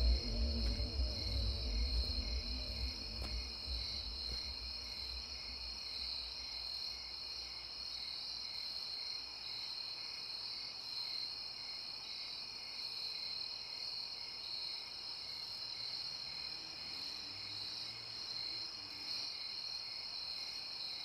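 Steady night-time chorus of crickets: an even, high trill with a faint regular pulse beneath it, as background music fades out in the first couple of seconds.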